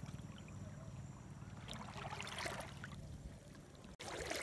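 Soft swishing and splashing of shallow seawater stirred by someone wading, swelling about two seconds in, over a low steady rumble; it breaks off abruptly near the end.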